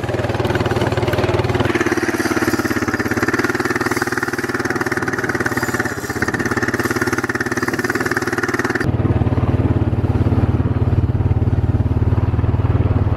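Honda ATV engine running steadily while driving across a field. A higher whir is added about two seconds in and drops out abruptly near nine seconds, after which the engine's low note is stronger.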